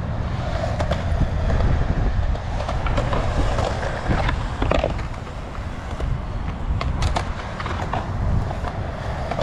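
Skateboard wheels rolling over concrete, a steady low rumble, with a few sharp clacks of boards on the ground.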